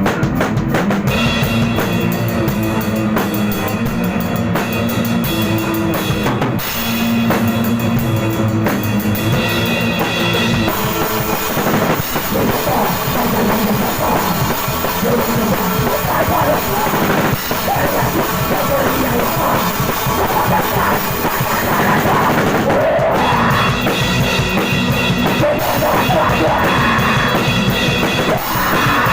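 Loud metal-hardcore punk band music, driven by a pounding drum kit with heavy bass drum and cymbals under a dense wall of band sound.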